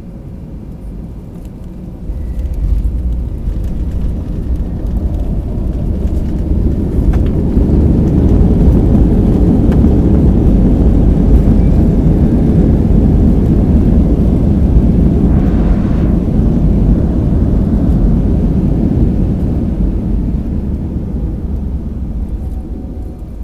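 Boeing 737-800 landing, heard from inside the cabin: the rumble jumps up at touchdown about two seconds in. The CFM56 engines' reverse thrust then builds into a loud, deep rumble over several seconds and fades slowly as the jet slows on the rollout.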